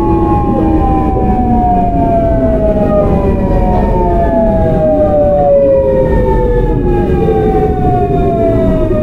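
Seoul Metro 8000-series train's GEC Alsthom GTO-VVVF inverter and traction motors whining: a set of tones falling steadily in pitch as the train slows, with a jump back up in pitch about five and a half seconds in. A low rumble of wheels on the rails runs underneath.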